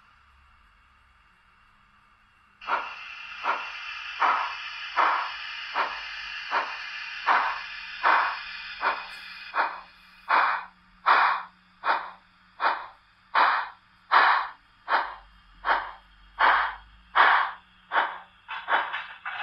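Model steam locomotive's sound decoder chuffing as the engine gets under way. After a short near-silence, a steady steam hiss starts with evenly spaced exhaust chuffs, about one and a half a second, which quicken near the end.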